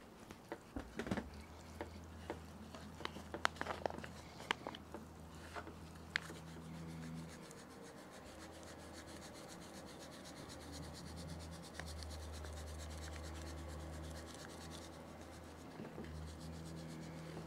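Faint hand-work on a raw boneless beef rib: soft taps and clicks as oil is rubbed in and the meat handled, then the light scratching of dry coffee rub shaken from a pouch onto the meat. A steady low hum runs underneath, stronger in the second half.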